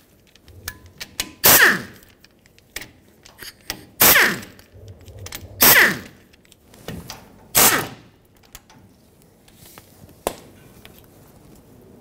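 Cordless power tool spinning out the 13 mm differential cover bolts in four short whirring bursts of about half a second each, each falling in pitch as the motor stops. Light clicks and one sharp tap come between the bursts.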